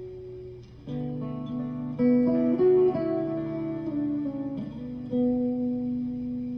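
1999 Fender '62 American Vintage Reissue Stratocaster, with a Warmoth neck and Ancho Poblano pickups, played through a Fender Supersonic 22 amp. It plays a single-note lead phrase with string bends and finishes on a long sustained note.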